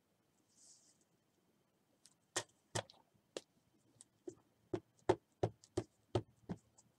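Short, sharp taps of craft tools and supplies on a tabletop: about ten in all, starting a little over two seconds in, scattered at first and then coming about three a second.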